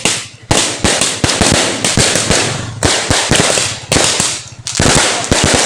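Firecrackers going off, sharp bangs and crackling in quick, irregular succession.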